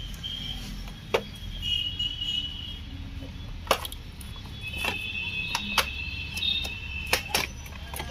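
Irregular clicks and knocks of a plastic engine-bay cover being worked loose by hand, with a few thin high squeaks and a low steady hum underneath.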